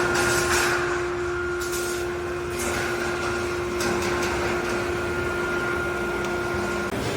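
Rebar mesh welding machine running: a steady machine hum with a higher whine over a clatter of clicks and knocks from the mechanism, the hum cutting off near the end.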